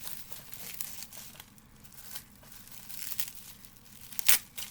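Packaging crinkling and rustling as it is handled and pulled open, with one sharp, louder crackle about four seconds in.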